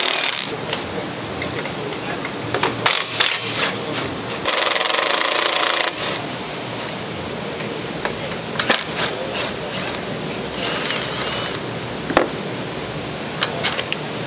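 Milwaukee Fuel cordless impact driver hammering bolts loose in short bursts, one right at the start and a longer one of about a second and a half a few seconds in, with sharp metallic clicks and clinks of the socket and bolts in between.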